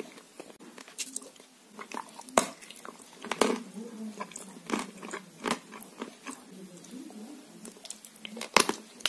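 Close-up eating sounds from a chocolate-cream-filled pastry: wet chewing and lip smacks broken by sharp crunchy bites, the loudest one near the end as she bites in again.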